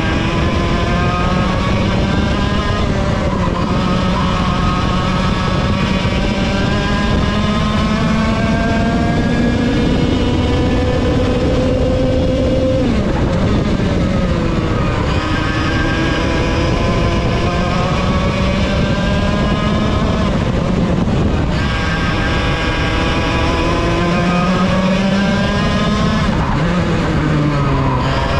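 Vortex VLR 100cc two-stroke kart engine at racing speed, heard onboard. Its pitch climbs slowly and steadily down the straights and drops sharply three times as the driver lifts off the throttle for corners.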